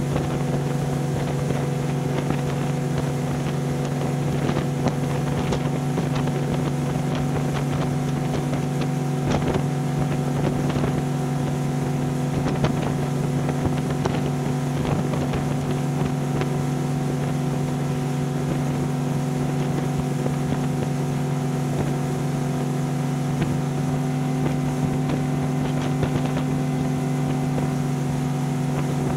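A single Yamaha 300 V6 four-stroke outboard holding a steady drone at wide-open throttle, driving a 30-foot boat on plane at about 37 to 38 mph with the other engine shut off. Water rushing past the hull and wind on the microphone run underneath.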